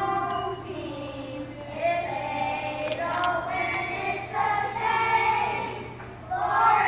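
A group of children singing together in held notes, in phrases with short breaks between them.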